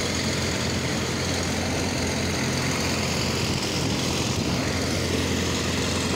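Steady running noise of a passenger train heard from inside the carriage as it moves, with a constant low hum beneath it.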